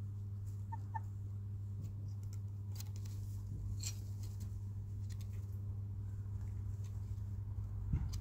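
Chickens in a coop pecking and scratching: scattered light taps and clicks, with a couple of faint short peeps about a second in, over a steady low hum.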